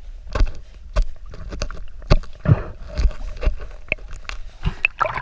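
Underwater knocks and clicks from a speared mahi-mahi struggling against the spear and gear at close range, heard through the camera's housing: an irregular run of sharp hits with low thumps, about two a second.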